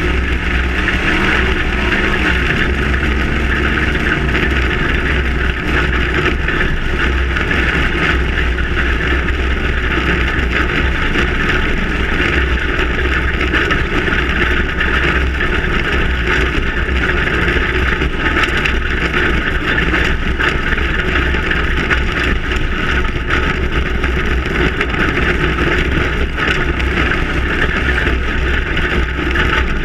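Ford Raptor-based prerunner truck driving fast over desert dirt: steady engine running, tyre and road noise, and wind rushing over the microphone.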